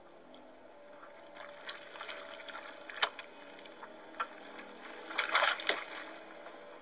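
Wet crackling and squelching creature sound effects from a horror film's mutated tick, over a faint low drone. Scattered clicks build to a sharp crack about three seconds in and a louder run of wet crackles about five seconds in.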